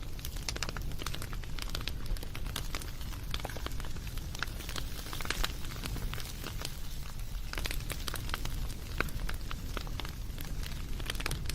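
Wood fire crackling and popping steadily, with many small sharp snaps over a low rumble of the flames.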